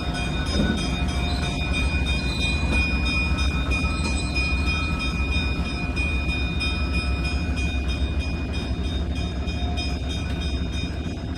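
Stainless-steel Nebraska Zephyr passenger cars rolling past: a steady low rumble of wheels on rail, with faint high ringing tones and a regular light clicking throughout.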